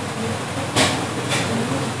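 Aluminium foil crinkling twice, briefly, as a tint brush works hair colour onto a foil packet, over a steady background rumble.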